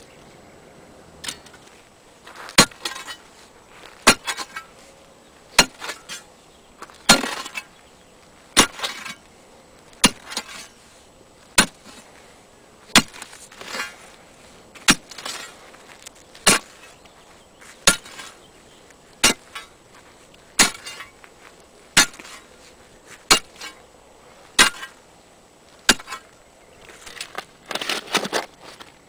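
A steel caliche bar slammed again and again into caliche hardpan at the bottom of a hole, a sharp strike about every one and a half seconds, some followed by a short crumbling scrape. Near the end there is a longer spell of scraping and crunching. The bar is breaking up the cemented calcium-carbonate layer.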